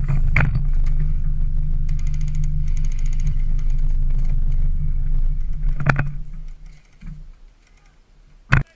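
Pickup truck's engine idling steadily, then switched off about six seconds in, its rumble dying away within a second. A few light clicks along the way and a single loud, sharp impact near the end.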